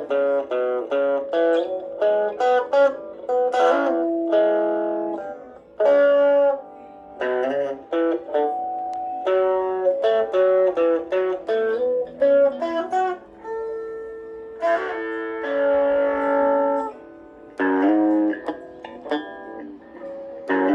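Squier Cyclone electric guitar played, single notes picked in quick runs broken by a few held notes and chords.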